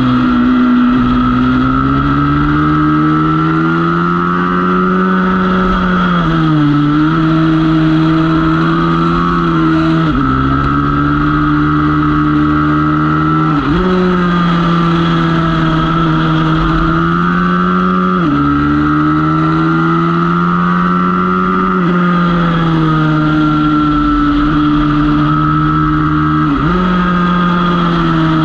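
Pit bike engine running hard, its pitch climbing slowly, then falling and stepping sharply at gear changes every few seconds; a couple of the steps are sudden jumps up.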